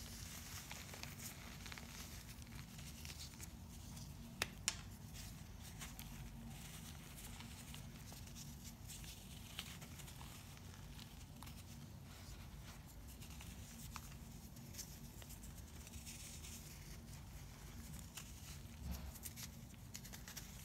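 Hands crushing and crumbling pressed chunks of baking soda: soft, dry powdery crunching with scattered crisp cracks, two sharp ones close together about four and a half seconds in. A faint low hum runs underneath.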